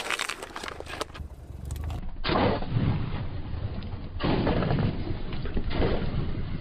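A car tyre rolls over and crushes full plastic cola bottles on asphalt: crackling, crunching plastic with sharp bursts, in several loud crunches.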